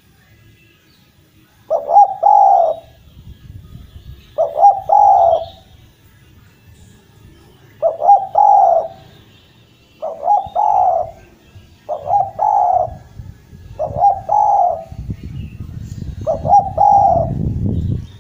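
Spotted dove (derkuku) cooing its territorial call: seven repeated phrases, each a quick clipped note followed by a longer rolling coo, about two seconds apart.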